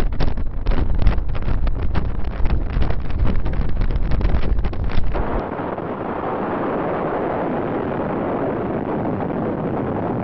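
Wind buffeting a camera microphone in strong gusts, a loud rumble full of crackles. About five seconds in it switches abruptly to a steadier, even rushing noise.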